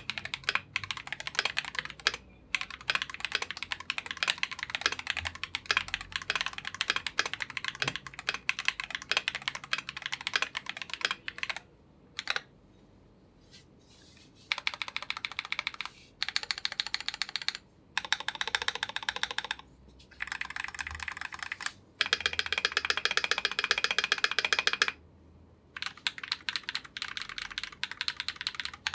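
Mechanical keyboard typing on a KBD67 Lite with Glorious Panda tactile switches lubed with Krytox 205g0. The keystrokes come in fast runs, broken by short pauses, including one of about two seconds near the middle.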